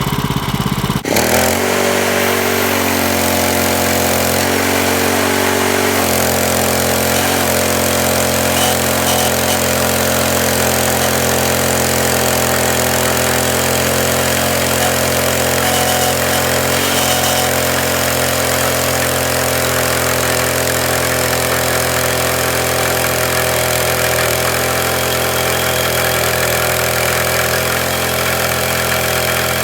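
Engine running steadily at an even speed. About a second in the sound changes abruptly to it.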